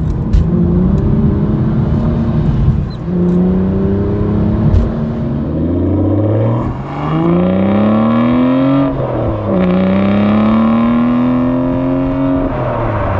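Aston Martin 6.0-litre V12 accelerating hard, its note climbing steadily, dropping sharply at a gear change about two-thirds of the way in, then climbing again until another drop near the end.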